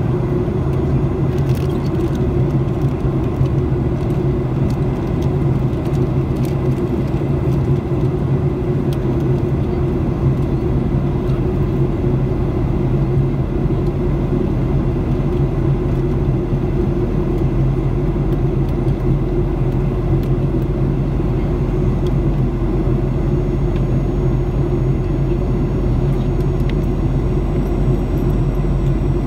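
Steady cabin noise of a Boeing 737-800 in flight, heard from inside the cabin beside its CFM56-7B engine: a constant drone of engine and airflow with a low, even hum.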